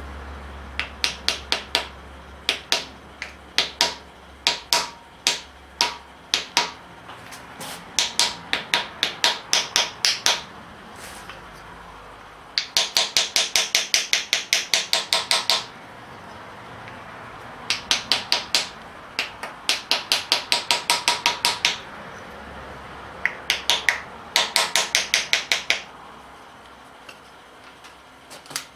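Light hammer taps with a metallic ring, in five bursts of strokes, about four a second at the quickest, as the rear main seal half is tapped down into its groove in a Holden 308 V8 block.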